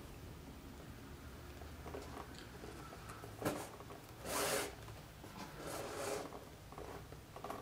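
Hand-stitching thread being drawn through the stitch holes of a saddle's leather seat. There is a short rasping zip a little past four seconds in and a softer one around six seconds, with small clicks and rubs of the hands and thread in between.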